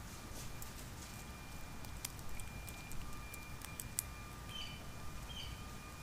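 Outdoor ambience of small birds at a feeding spot: scattered sharp clicks and crackles through the first four seconds, then two short bird chirps, about a second apart, near the end, over a steady low rumble.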